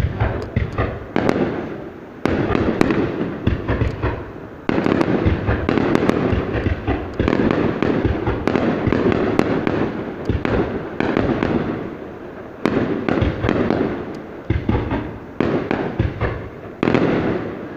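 Aerial fireworks display: a dense, continuous barrage of bangs and crackling, with fresh volleys setting in about two, five, thirteen and seventeen seconds in.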